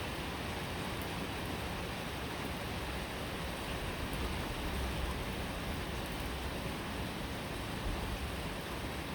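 Steady rain falling, a continuous even hiss with a low rumble beneath it.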